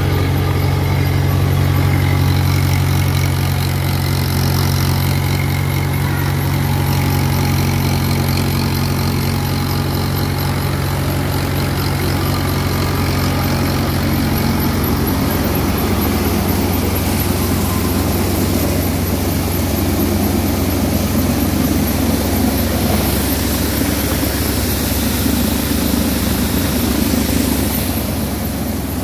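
Mahindra 575 tractor's diesel engine running steadily at about 1,500 rpm, driving a wheat thresher. After about 16 seconds the engine's hum gives way to a rougher rushing noise from the thresher's drum and belt drive.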